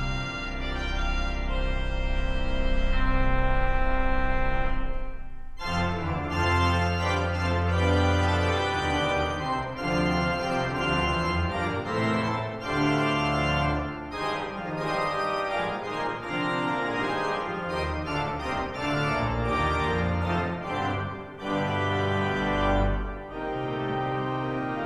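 Large church pipe organ being played: a held chord over a deep pedal note for about five seconds, a short break, then a busier passage with moving pedal notes below the manual parts.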